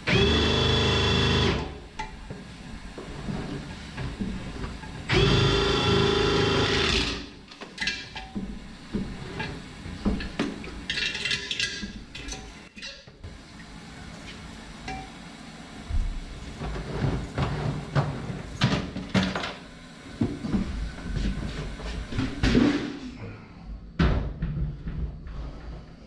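Drum-type electric drain-cleaning machine running in two short bursts, its motor spinning the cable in the toilet drain, then stopping; between and after, repeated clanks and rattles of the cable and machine being handled.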